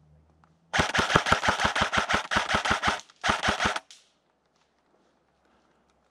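Rapid automatic gunfire at about nine shots a second: a burst of about two seconds, then, after a brief gap, a shorter burst of about half a second.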